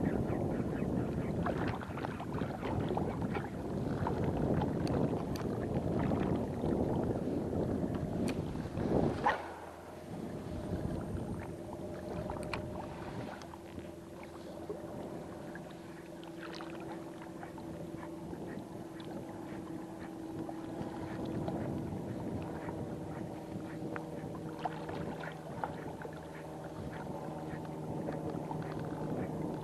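Rough rustling and handling noise for about nine seconds, ending in a sharp knock, then a steady low engine hum made of several tones.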